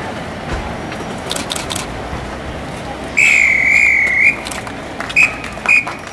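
Drum major's whistle: one long, slightly warbling blast of about a second, about three seconds in, then two short toots, over steady chatter from the street crowd. The long-then-short whistle pattern is a marching band's signal to start playing.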